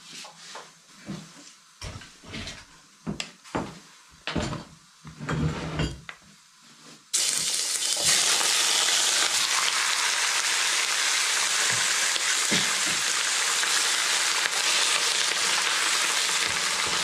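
Light knocks and clinks of handling a hot steel wok. About seven seconds in, sliced raw beef goes into the hot oil and a loud, steady sizzle starts at once, with occasional scrapes of a wooden spatula as the beef is stir-fried.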